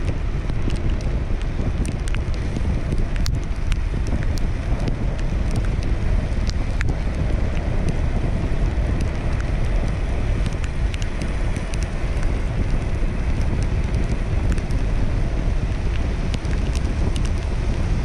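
Steady rain, with scattered sharp ticks of drops striking close by, under a constant low rumble of wind on the microphone.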